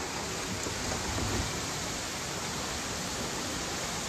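Muddy floodwater rushing in a fast torrent along a street: a steady, even rushing noise.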